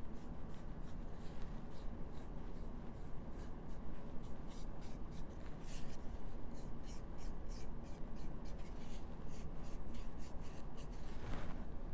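Nearly dry paintbrush scratching along the edges of a laser-cut cutout in many quick, short strokes, dry-brush shading. A steady low room hum lies underneath.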